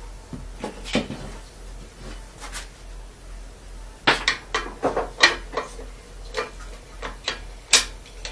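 Metal tools and parts clinking and knocking against a walk-behind tractor engine as it is taken apart. There are a few knocks about a second in, then a quick, irregular run of sharp clinks from about four seconds on.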